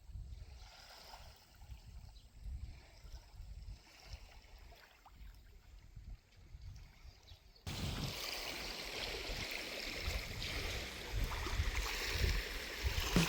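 Lakeshore water washing, with low wind rumble on the microphone; the sound jumps abruptly louder at a cut about eight seconds in.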